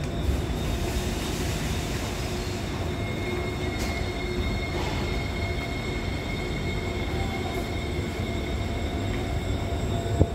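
Alstom Movia R151 metro train standing at the platform: a steady rumble of running equipment with a thin, high, steady whine over it from about three seconds in. A single sharp knock comes near the end.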